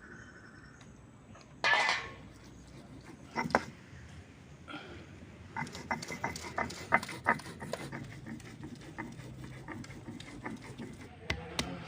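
Spices being ground on a shil-nora, a stone rolling pin worked back and forth over a flat grinding stone, giving a run of irregular stone-on-stone knocks and clicks, a few a second. A brief louder scrape comes about two seconds in.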